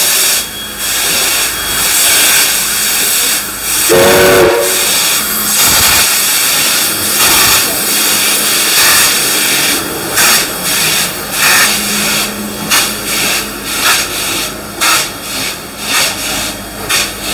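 Steam locomotive moving past at walking pace with a loud, steady hiss of escaping steam. A short steam-whistle toot about four seconds in, and a rhythmic clatter of wheels in the second half as the carriages roll by.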